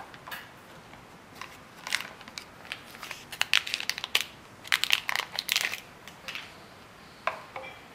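Phone accessories being handled and unpacked from a cardboard box: intermittent rustling and crinkling of packaging with light clicks, busiest in the middle.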